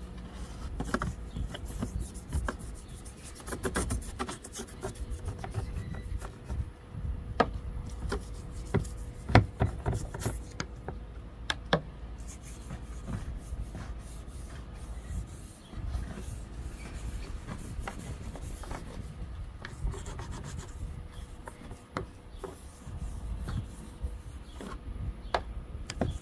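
Old toothbrush scrubbing with soap along the windshield seal channel, where the rotted rubber seal has been cut out: a continuous rough rubbing with occasional sharp knocks.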